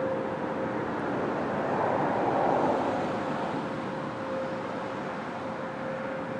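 ASC T-128 rotating outdoor warning siren sounding one steady tone, faint here, well below its loudest, as the rotating horn points away. A rushing haze under it swells about two to three seconds in.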